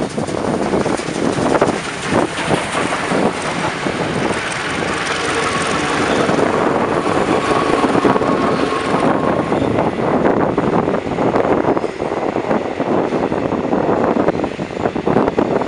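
Passenger train passing close: Class 35 diesel locomotives and a steam locomotive go by, then the coaches' wheels clatter over the rail joints.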